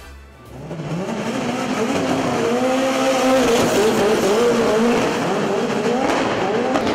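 Toleman TG184 Formula One car's turbocharged 1.5-litre Hart four-cylinder engine, loud. It rises in pitch from about half a second in as the car pulls away, then revs up and down as it is driven.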